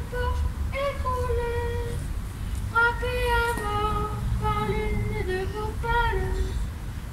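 Children's choir singing a slow melody in unison, with long held notes, outdoors through microphones.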